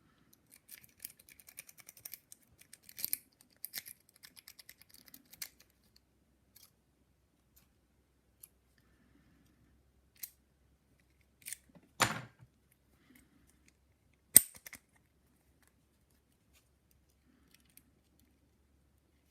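Lock-pick rake working the pins of a padlock: a quick flurry of small metallic clicks and scrapes for about five seconds, then scattered clicks, a short rattle about twelve seconds in and one sharp, loud click about fourteen seconds in.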